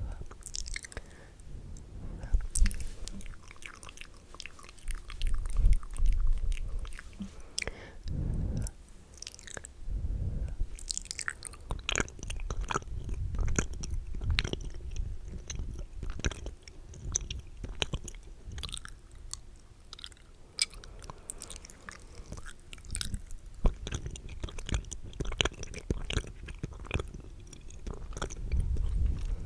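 Wet, spitty mouth sounds close to the microphone: irregular clicks, lip smacks and licking crackles, with a few soft, muffled low bumps against the mic.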